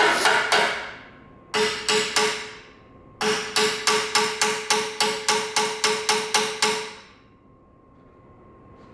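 Hand hammer beating metal in rapid, evenly spaced blows, each with a metallic ring: panel-beating during collision repair of a car's front end. Two short runs of three blows, then a longer run of about four to five blows a second that stops about two seconds before the end.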